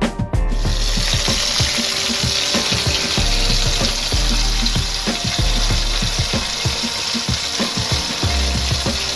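Flour-dredged buttermilk chicken pieces frying in a pan of hot oil: a steady, dense sizzle that starts about half a second in. Background music with a low beat plays under it.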